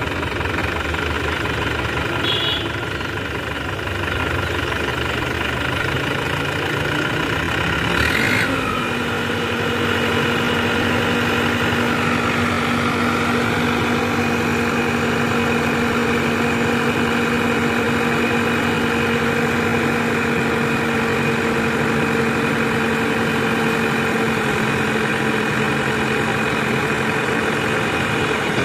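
Tractor diesel engine running. About eight seconds in it revs up and holds a steady higher pitch as its hydraulic lift raises a trolley load of sand to tip it.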